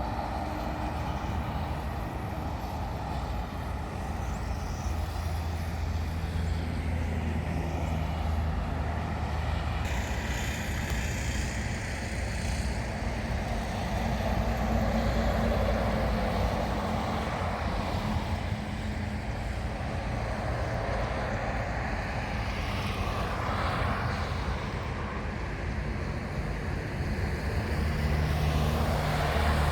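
Road traffic: vehicle engines humming steadily, with several vehicles swishing past.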